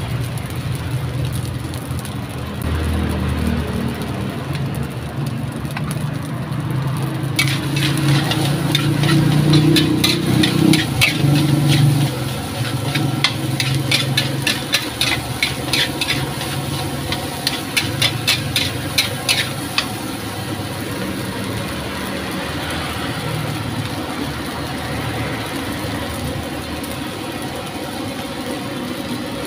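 Metal spatula clanking and scraping against a wok in quick repeated strokes as fried rice is tossed, over a steady low rumble. The clanking runs for about twelve seconds in the middle; the rumble continues alone before and after.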